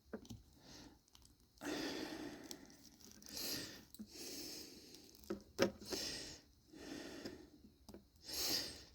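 Faint breathing close to the microphone, several breaths a second or two apart. A few sharp small clicks of plastic action-figure parts being handled, two of them a little after five seconds in.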